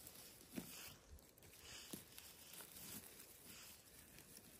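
Near silence: faint rustling with a few soft clicks.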